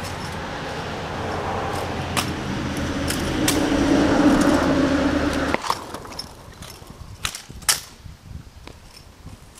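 Kick scooter wheels rolling over rough, cracked asphalt. The rumble grows louder as the rider approaches and stops suddenly about five and a half seconds in. Sharp clacks of the scooter striking the pavement follow, the loudest two close together about two seconds later as a trick is landed.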